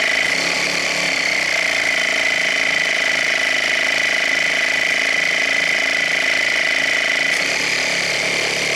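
Small 12 V tire-inflator air compressor running steadily, with a high whine, pumping air out of its open hose. With its loose head bolts just tightened, it builds compression and makes air again.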